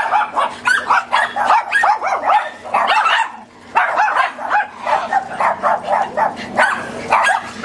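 A pack of small dogs barking and yapping together, their high-pitched barks overlapping almost without a break, with a short lull about three and a half seconds in.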